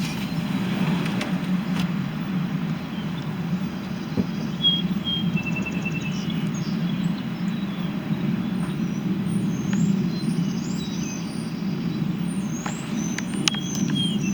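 Steady low rumble of outdoor background noise, with small birds chirping faintly now and then, mostly in the second half.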